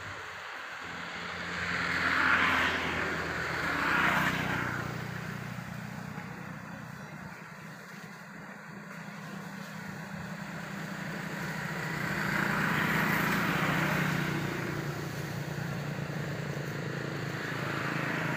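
Road vehicles passing one after another, each tyre-and-engine sound swelling and fading: two quick pass-bys in the first few seconds, a longer one past the middle and another near the end, over a low engine hum.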